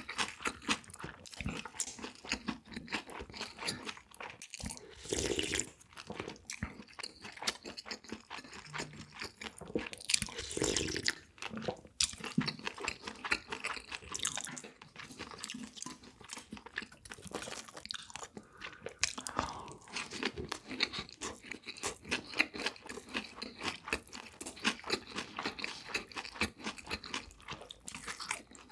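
Close-miked chewing and biting of crunchy food, with rapid, dense crunches throughout and a few louder bites along the way.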